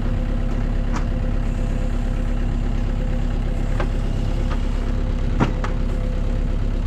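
An engine idling steadily with an even low hum, with a few light clicks or knocks over it; the sharpest comes about five and a half seconds in.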